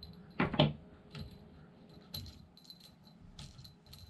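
Small metallic clicks and clinks from hands working a metal crimp, shooting line and pliers on a wooden table, with a louder handling noise about half a second in.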